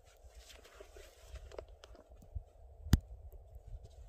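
Snow crunching and a backpack's fabric rustling as a man handles and shoulders the pack in deep snow, with one sharp knock about three seconds in, over a low steady rumble.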